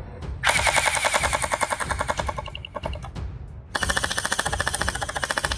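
Electric gel blasters firing full-auto in two rapid bursts of about two and a half seconds each, with a short pause between them. The second burst has a different, lower-pitched buzz from the first, as if from the other blaster.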